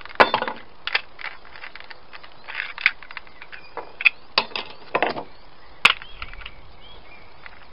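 Unplugged angle grinder being handled: a series of sharp clicks and short rattles, half a dozen or so spread over several seconds.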